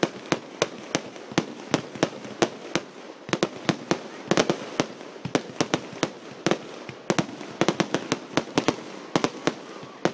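Fireworks going off in a rapid, irregular barrage: sharp bangs several times a second as shots launch and burst overhead, with a hiss of crackle between them.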